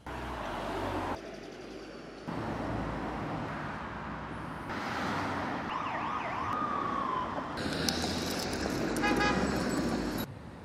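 Night city street ambience made of short clips cut together abruptly, mostly steady traffic rumble and noise. A wavering, siren-like wail rises and falls around the middle.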